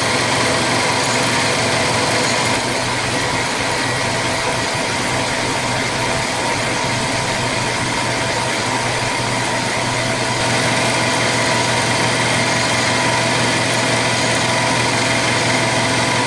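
Vertical milling machine running a 1/4 inch ball end mill at about 1300 RPM while it takes a light spring pass along a 303 stainless steel rod: a steady motor and spindle hum with a faint cutting hiss.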